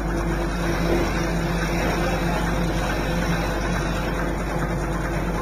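Log saw machine running with a steady mechanical hum, a few constant tones over an even whirring noise.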